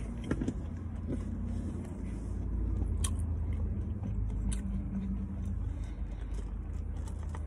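Steady low rumble of a car idling, heard from inside the cabin, with a few faint clicks.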